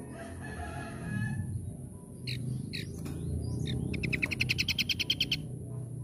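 Scaly-crowned babbler (asi topi sisik) calling: three short downward-sliding whistles, then a fast, loud trill of about a dozen notes lasting over a second. A steady low hum runs underneath.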